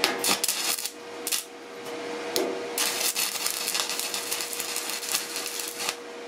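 Stick (MMA) welding electrode on thin painted sheet steel, striking badly: a few scattered crackles and pops, then about three seconds in the arc catches and crackles steadily for about three seconds before breaking off. The poor striking comes from paint on the metal. A steady hum runs underneath.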